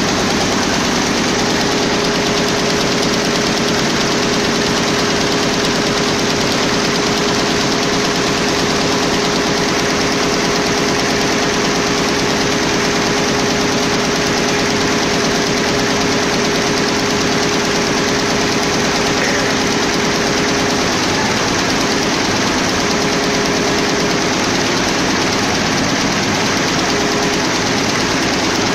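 Schiffli embroidery machine running in production, its long row of needles stitching fast: a loud, steady mechanical clatter over a constant hum.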